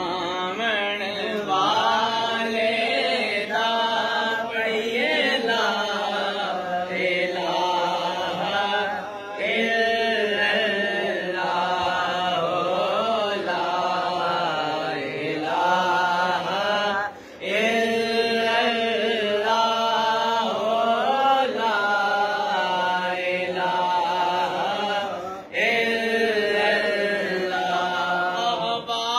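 Male voices chanting a naat, an unaccompanied devotional hymn in praise of the Prophet, in long drawn-out phrases with short pauses for breath about every eight seconds.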